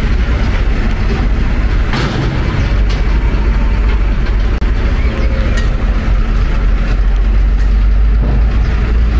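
A vehicle's engine running steadily nearby as a loud low rumble, with a faint knock about two seconds in.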